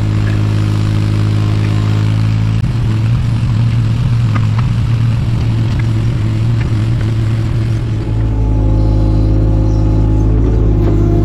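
Takeuchi TB216 mini excavator's diesel engine running steadily. From about a quarter of the way in the engine note turns rougher under load while the bucket works, with a few knocks and clatters. It settles back to a steady note about three-quarters of the way through.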